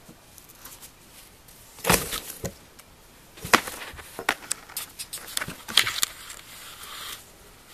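A kitten scrambling and tumbling inside a small cardboard box: irregular knocks and scratches of paws and body against the cardboard, the loudest about two seconds in and again about three and a half seconds in, with a short stretch of scratchy rustling near the end.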